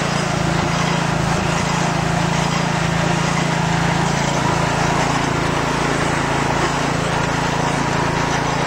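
Lawn tractor engine running steadily as the tractor drives through thick mud.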